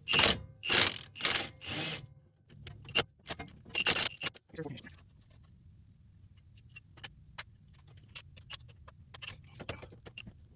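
A large impact wrench fired in four short bursts, then a couple more, hammering on a seized sway bar end link nut that will not come free. Light metallic clicks and clinks of tools follow.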